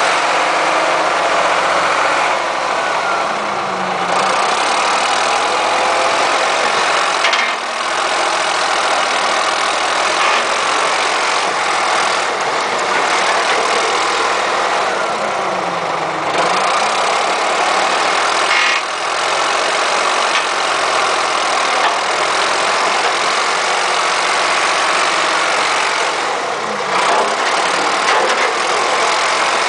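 Ford 555 backhoe's freshly rebuilt engine running steadily, with a few brief dips and sags in its note.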